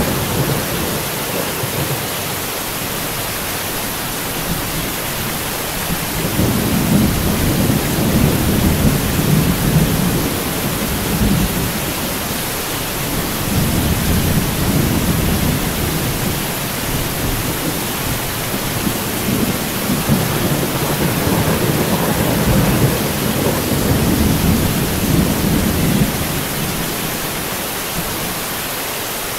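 Heavy rain falling steadily, with low rolling thunder that swells and fades in several long rumbles and eases near the end.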